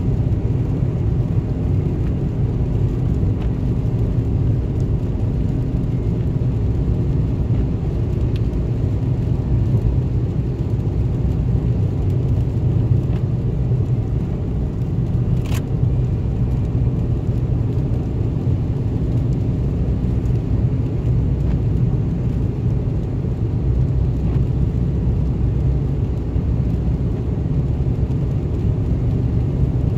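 Steady engine drone and tyre noise heard inside a vehicle's cabin while it cruises at highway speed, with one brief tick about halfway through.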